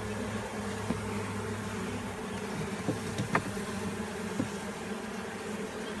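Honeybees in an open top bar hive humming steadily, the colony rowdy, with a few light knocks from the wooden top bars being handled, the sharpest a little over three seconds in.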